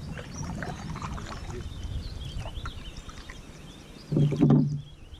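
Kayak on the water with low rumbling noise and birds chirping, and a brief loud voice-like exclamation from a man about four seconds in.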